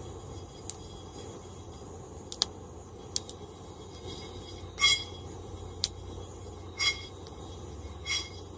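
Coffee beans rattling and sliding in a small frying pan as it is shaken during roasting: three short rattles about a second apart in the second half, with a few sharp single clicks scattered between them, over a steady low rumble.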